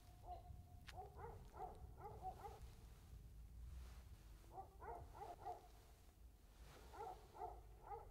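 Faint animal calls: three short runs of quick repeated notes.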